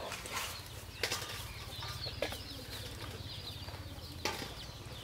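A plastic comb scratching through hair and scalp in a few separate short strokes, with faint bird chirps behind.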